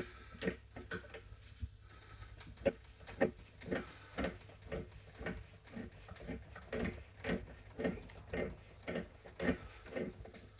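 Pliers gripping and turning the piston of an Opel Astra rear brake caliper held in a vise, making a regular run of short metallic clicks and creaks about two and a half a second. The piston is being rotated in its bore so that a tool can be fitted.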